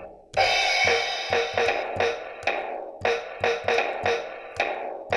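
Electronic finger-drum toy playing a quick drum beat of sampled drum hits, tapped out with the fingers, with a cymbal crash about half a second in that rings on for about a second.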